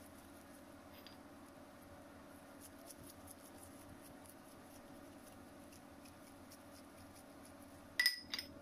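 Gloved hands squeezing and shaping soft rice-kibbeh dough: faint soft ticks and squishes of disposable gloves on the dough, over a low steady hum. Near the end come two sharp, louder clicks in quick succession.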